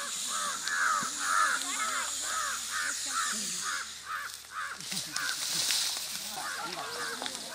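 A crow cawing in a fast, even run of harsh caws, about two or three a second. After about five seconds the caws become sparser and more irregular.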